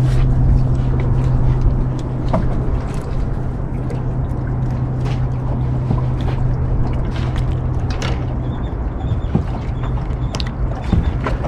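Boat motor idling with a steady low hum, over water sloshing and a few light clicks.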